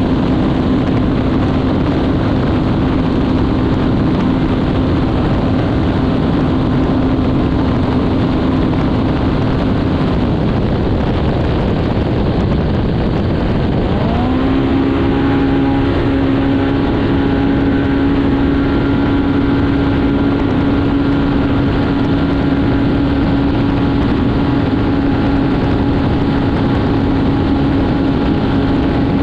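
Polaris Factory Pro R race UTV at speed: its engine holds a steady high note under a loud rush of wind and road noise. The engine note falls away about ten seconds in, then rises again about fourteen seconds in as it picks up speed and holds steady.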